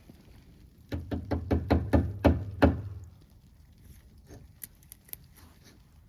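A quick run of about eight knocks in under two seconds, each hit louder than the one before, followed by a few faint taps.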